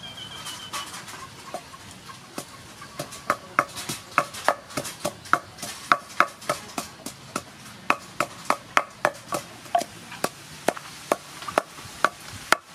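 Long wooden pestle pounding chopped lemongrass in a wooden mortar: a run of regular knocks, a few at first, then about two to three a second from around three seconds in.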